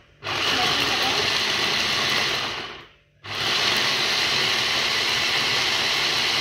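Electric mini chopper's motor running as its blade chops onion, pulsed by the button. It runs for about two and a half seconds, stops briefly, then runs again.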